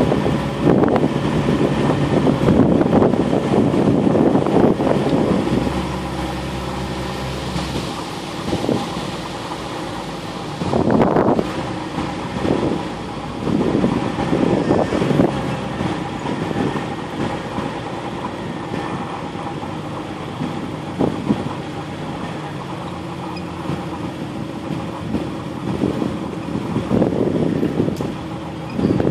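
Off-road vehicle's engine running at low speed on a rough trail: a noisy rumble for the first few seconds, then a steady engine hum broken by short loud bumps and jolts.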